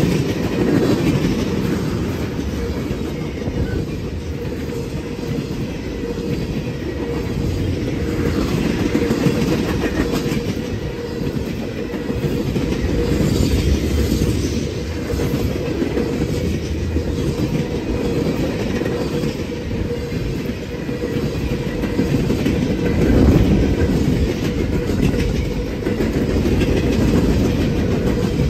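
Freight train of tank cars and covered hopper cars rolling past at close range: a steady heavy rumble of steel wheels on the rails, with a faint steady ringing tone over it.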